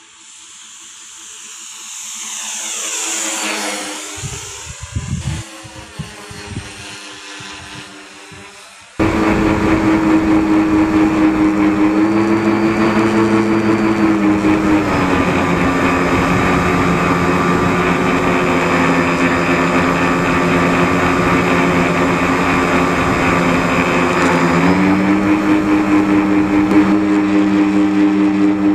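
RC model plane's electric motor whining past, swelling and then fading over the first few seconds, followed by wind buffeting the microphone. Then, heard from a camera riding on the plane, the motor runs loud and steady, its pitch dropping about 15 seconds in and rising again near 25 seconds as the throttle is eased back and opened up.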